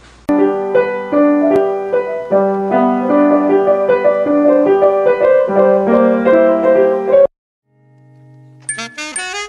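Piano playing chords and a melody over a held bass note for about seven seconds, then stopping suddenly. Near the end, after a short gap, a toy keyboard starts up with wavering notes.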